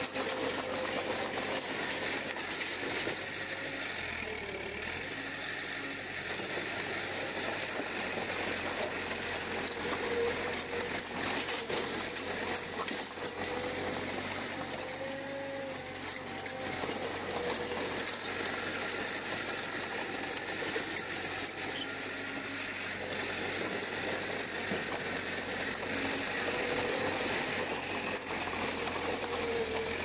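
Komatsu crawler bulldozer working, its diesel engine running steadily under a constant rattle of small metallic clicks.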